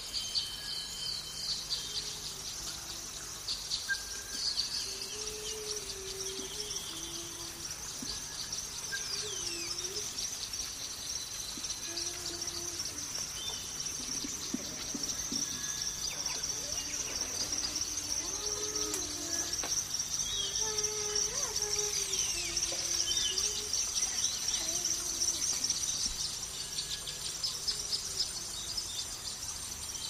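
Birds chirping and singing, many short calls and quick sweeping notes, over a steady high-pitched background drone, with lower, wavering calls heard now and then.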